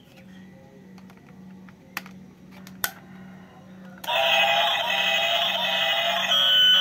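Two sharp plastic clicks as the battery cover goes back on the toy train, then about four seconds in the battery-powered toy train switches on and plays a loud electronic tune of held, synthetic-sounding notes.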